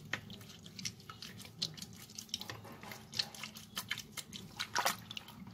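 Irregular small splashes and drips of water as raw chicken pieces are rubbed and rinsed by hand in a bowl of water.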